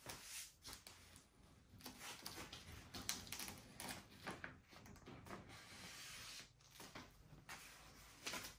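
Faint rustling and scraping of vinyl wrap film being handled and cut on a car body, with scattered light knocks and a steadier rustle for a second or so past the middle.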